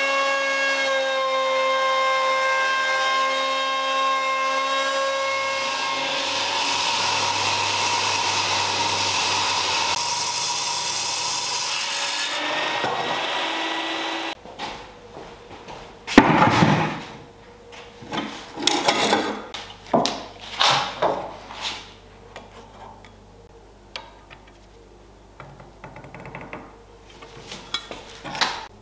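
Festool plunge router running with a steady high whine, then cutting into the oak tabletop's edge from about six seconds in, milling the bevelled edge, and spinning down a little after halfway. In the second half come several short, loud rasping cutting sounds in quick succession, then softer handling noises.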